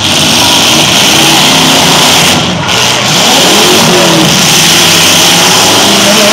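Demolition-derby pickup trucks' engines revving hard under load, a loud steady wash of engine noise with the pitch wavering up and down.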